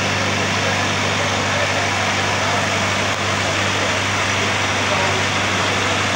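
An engine runs steadily at idle with a constant low hum, under the chatter of a large crowd of voices.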